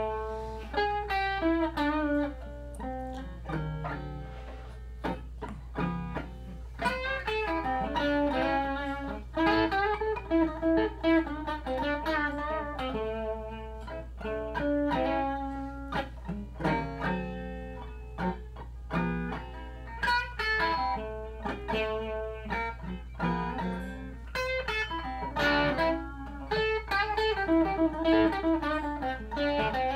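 Stratocaster-style electric guitar played through a combo amplifier: improvised single-note blues lines with bent and wavering notes, over a steady low amplifier hum.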